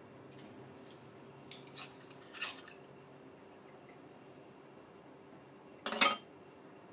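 Shucking blood clams with an oyster knife over a glass bowl: a few light clicks and scrapes of knife and shell, then one louder clack of shell against the glass about six seconds in.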